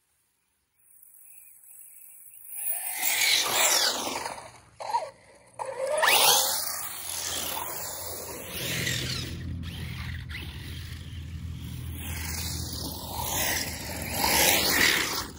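Electric RC truck's motor whining, rising and falling in pitch as it speeds up and slows down over and over. It starts about a second in.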